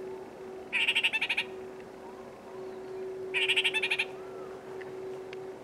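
Kākāriki (New Zealand parakeet) chattering: two short bursts of rapid ki-ki-ki calls, about a second in and again just past three seconds, each under a second long, over a faint steady tone.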